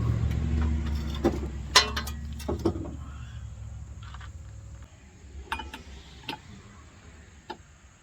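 Metal clicks and clinks of the saw-blade attachment on a Stihl FS111R trimmer being taken apart by hand: several separate sharp ticks, over a low rumble that fades out over the first few seconds.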